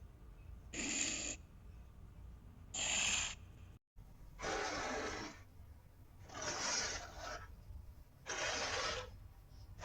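Allosaurus sound effects: five short, noisy creature calls, each under a second, spaced about two seconds apart, with a brief dropout in the track just before the third.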